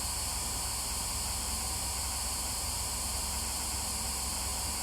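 Steady static hiss with a low hum underneath, from a ghost-hunting spirit box left running while it is listened to for answers.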